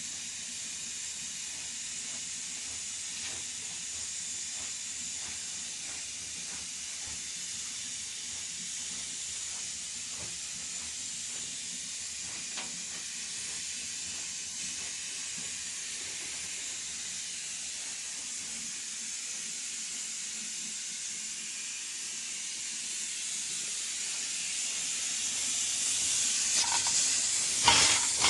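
Steady hiss of food sizzling in a cooking pot. It grows louder over the last few seconds, with a few sharp clicks near the end.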